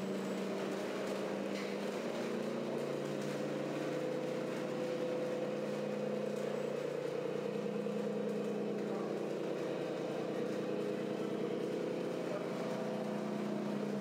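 Simulated diesel engine sound from scale RC trucks' sound modules: a steady, even hum whose pitch shifts slightly partway through, with faint voices behind it.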